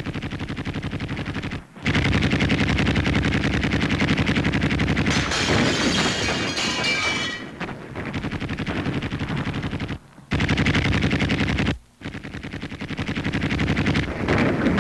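Machine-gun fire: a fast, continuous rattle of shots. It cuts out abruptly for a moment about two seconds in, and twice more between ten and twelve seconds in. A brighter, hissier stretch of firing comes around six to seven seconds in.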